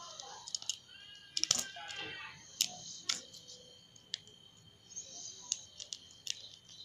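Small plastic seasoning sachets crinkling and clicking as they are handled and torn open over a bowl of dry noodles, with scattered sharp clicks, the loudest at about one and a half and two and a half seconds in.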